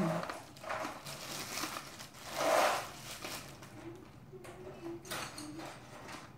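Thin disposable plastic gloves crinkling and rustling as they are pulled off, in several short bursts, the loudest about two and a half seconds in.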